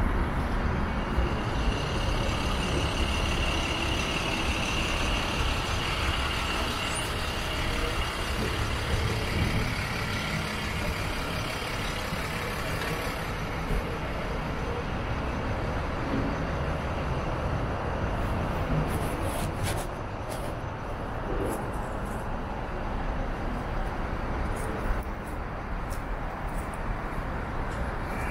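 Street traffic ambience: a steady rumble of passing trucks and cars, with a high squeal held for the first several seconds and a few sharp clicks about two-thirds of the way through.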